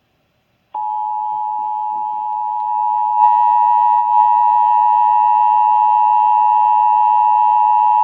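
Emergency Alert System attention signal: the steady two-tone alarm of 853 and 960 Hz, starting abruptly about three-quarters of a second in and holding on without a break. It signals that an emergency alert message is about to be broadcast.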